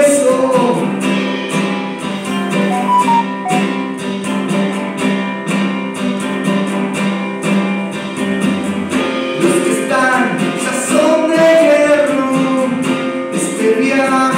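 Acoustic guitar strummed in a steady rhythm with a man singing along into a microphone; the voice drops out for a stretch in the middle, leaving the guitar alone, and comes back about ten seconds in.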